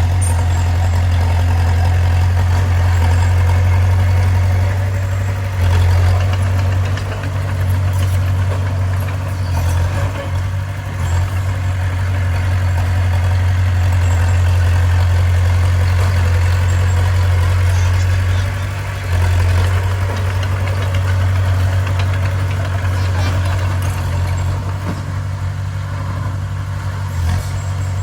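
Bulldozer's diesel engine running steadily, a constant low drone that dips briefly in level a few times.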